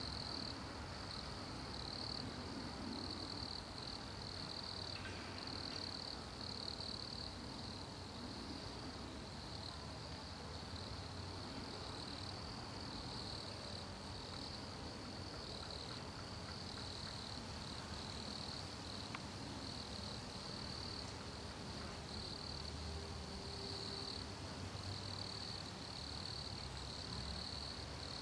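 Wood crickets (Nemobius sylvestris) singing in chorus: a soft, continuous high churring trill that swells and fades a little in strength.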